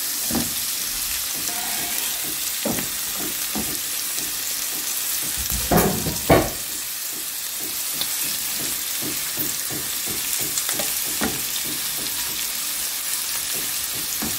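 Green beans sizzling in olive oil in a non-stick frying pan, a steady hiss, frying with no water added. Two loud knocks come about six seconds in, then a wooden spoon stirs sliced onions into the beans with many light clicks against the pan.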